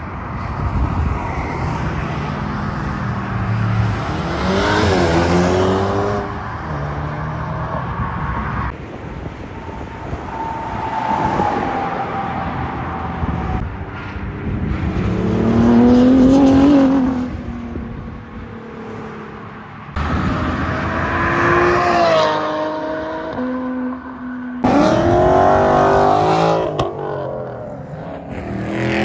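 A series of cars accelerating hard away from a car meet, one after another, each engine's pitch climbing, dropping at a gear change and climbing again before fading, with the hiss of road traffic between passes.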